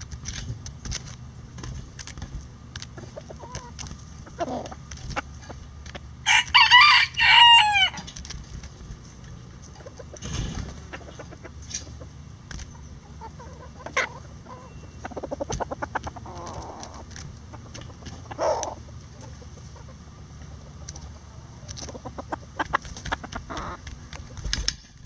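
Bantam chicken flock: a rooster crows once, loud and high, about six seconds in, with softer clucking from the hens. Short sharp taps run throughout, the birds' beaks pecking at a hanging vegetable treat.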